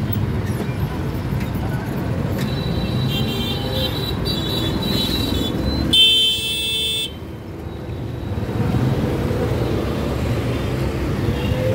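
Street traffic with engines running and vehicle horns tooting. One loud, high-pitched horn blast about six seconds in lasts about a second.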